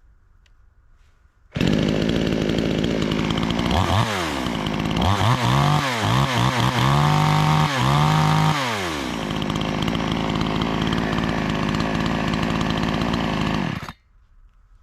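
Gas chainsaw engine running. It starts suddenly, is revved up and back down several times, settles to a steady run, then cuts off abruptly near the end.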